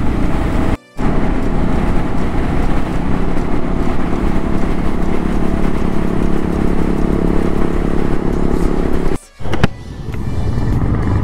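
Motorcycle engine running steadily at highway cruising speed, with wind and road noise. The sound cuts out briefly twice, and after the second break, about nine seconds in, a lower engine rumble of motorcycles moving slowly on a dirt track takes over.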